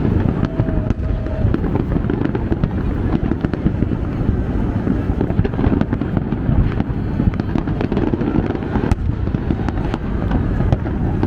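A distant fireworks display: a continuous rumble of many shells bursting, with frequent sharp cracks.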